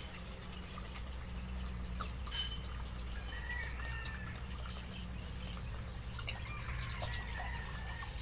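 Water poured from a plastic bottle in a steady stream into a pot of rice and water, splashing into the liquid.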